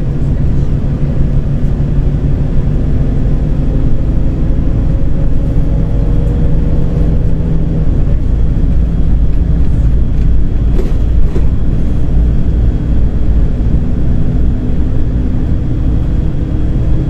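Volgabus-5270.G2 city bus running on liquefied natural gas, heard from inside the cabin while driving: a steady, loud engine and road rumble whose engine note drifts slightly in pitch, with a few faint rattles around the middle.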